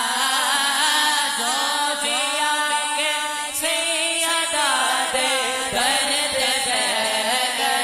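Wordless vocal chanting in a naat, with several voice lines sliding in pitch over a steady hummed drone and no instruments.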